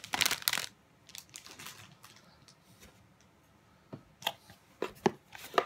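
Close handling noise of objects being moved about and set down: a quick cluster of sharp knocks and rustles at the start, a quieter stretch of faint rustling, then a few more separate clicks and knocks near the end.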